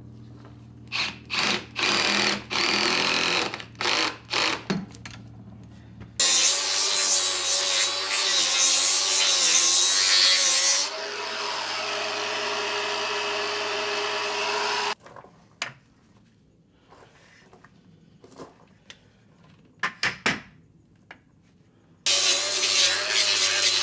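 Cordless drill run in a string of short bursts into the boat's timber, then a power tool running steadily for about nine seconds, then scattered knocks of wood being handled. Near the end a cordless angle grinder starts and runs steadily against the white oak bottom planking.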